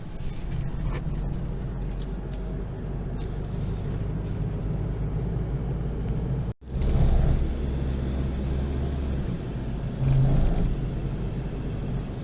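Car driving, a steady low rumble, broken by a sudden short gap about halfway through.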